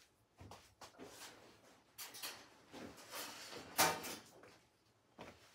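Faint scattered knocks, clicks and rustles of someone handling things and moving about in a small laundry room, with one louder brief knock or scrape about four seconds in.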